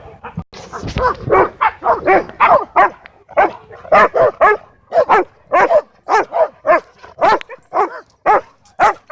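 A dog barking over and over, about two to three short barks a second, with a brief pause just before the run starts.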